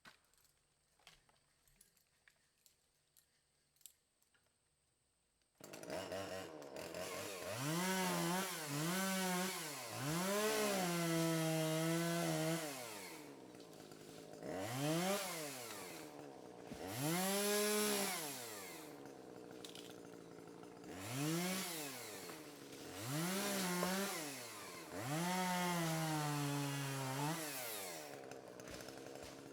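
Faint scattered knocks, then a two-stroke chainsaw comes in suddenly about six seconds in and runs on. It revs up and drops back to idle again and again, holding high revs for a second or two several times as it cuts small trees.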